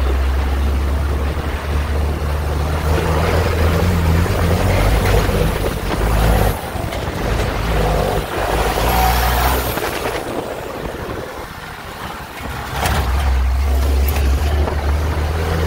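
Off-road vehicle driving a dirt trail: a low engine rumble under rattling and road noise. The engine eases off for a couple of seconds past the middle, then picks up again. Near the end, branches scrape along the vehicle.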